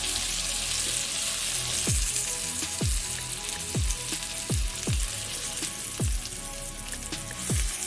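Chicken frying in oil in a cast-iron skillet, a steady sizzle, under background music with a falling low beat about once a second.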